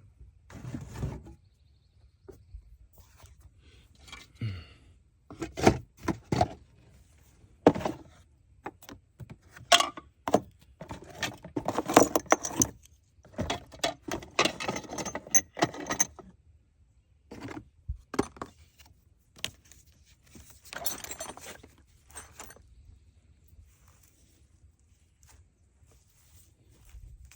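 Keys jangling among scattered knocks and clunks of handling, irregular and in clusters. No engine is running.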